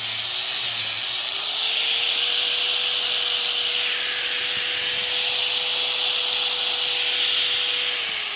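Electric angle grinder cutting braided 6 AN hose. Its motor pitch sags under load for about the first second, then it spins freely at a steady high pitch with a loud hiss. Near the end it starts to wind down.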